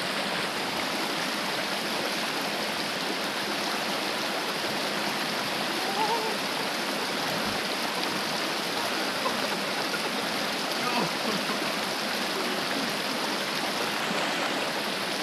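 Shallow rocky river rushing steadily over and between stones in small rapids.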